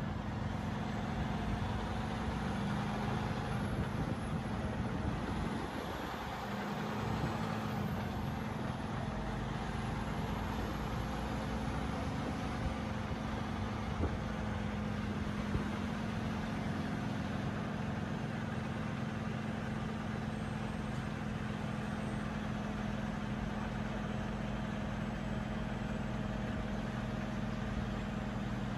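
Semi-truck's diesel engine running steadily, heard from inside the cab as the truck moves: an even low hum with no revving.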